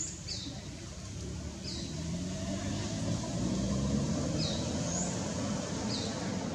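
A motor vehicle's engine running, a low drone that grows louder a couple of seconds in and stays up. Short, high, falling bird chirps sound over it every second or so.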